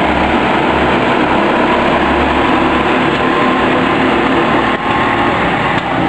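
Engines of a field of racing karts running at speed round the circuit, a steady, loud, high engine drone.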